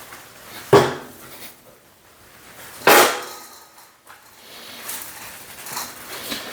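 Two loud, sharp clanks of heavy steel parts knocking together at a steel welding table, each ringing briefly, the first about a second in and the second about three seconds in, with a couple of lighter knocks near the end.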